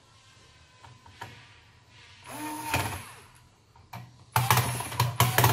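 Handheld electric screwdriver running in short bursts as it drives the screws of a screw terminal block on an amplifier board: one run about two seconds in, then several quick runs in the last second or so, with small clicks between them.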